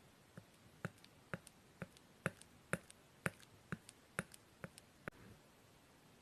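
Slime being pressed and worked by hand, giving sharp clicking pops about twice a second; they stop about five seconds in.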